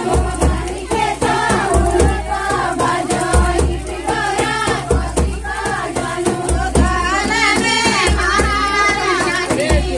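A song with singing over a steady, regular low beat, starting abruptly.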